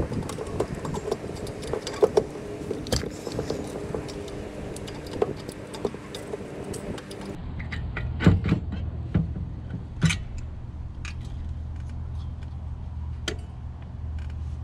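Small metal clicks and clinks of a replacement carburetor and its linkage being handled and fitted onto a generator engine, with a few sharper knocks about halfway through. A steady low hum comes in abruptly about halfway through and runs under the clicks.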